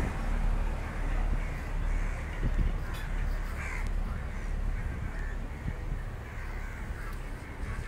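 Crows cawing a few times over the steady low rumble of a train rolling slowly through a station, heard from an open coach door.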